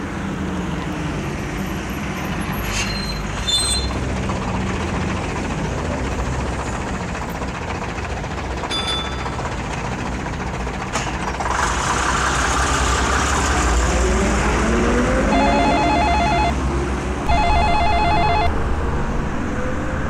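Mobile phone ringtone: two short bursts of rapid electronic beeping in the last few seconds. Underneath runs steady traffic noise.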